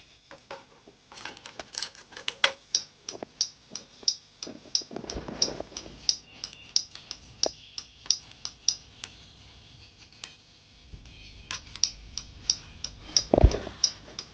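Honda CBF125 indicator flasher relay ticking evenly, about three clicks a second, with a short lull around ten seconds in, as the indicator circuit is tested. A single dull thud comes near the end.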